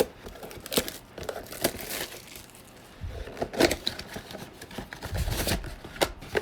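Trading-card pack wrappers and packaging crinkling and tearing open, in irregular rustles and crackles that get busier about halfway through.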